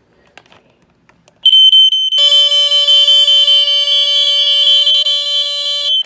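Amway smoke alarms sounding on their test buttons: one piercing steady tone starts about a second and a half in, a second alarm joins a moment later, and both cut off suddenly near the end. Faint clicks of hands on the test buttons come before.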